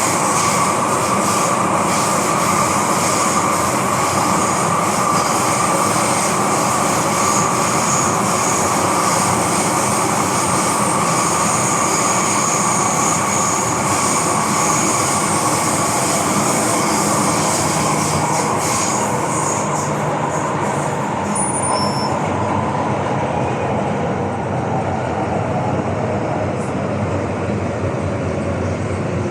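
MTR M-train running on the Tsuen Wan Line: steady running noise of wheels on rail, with a constant whine over it. The high hiss fades about two-thirds of the way through.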